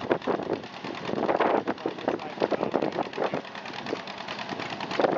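Antique farm tractor engine idling, a quick, uneven run of firing pulses.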